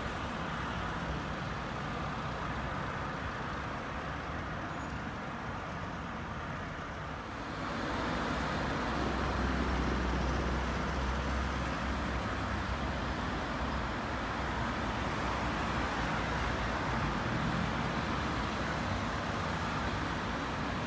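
City street traffic: a steady wash of passing cars. About eight seconds in it grows louder as a vehicle passes close, with a low rumble for a few seconds.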